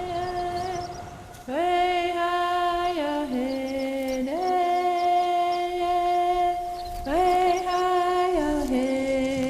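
Background music: a wordless, voice-like melody of long held notes. Each note slides up at its start and later steps down, three times.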